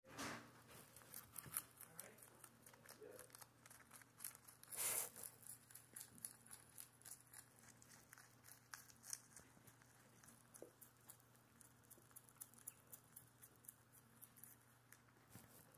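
Rabbit chewing leafy greens, faint rapid crisp crunching clicks as it bites and grinds the leaves, with a louder rustle about five seconds in.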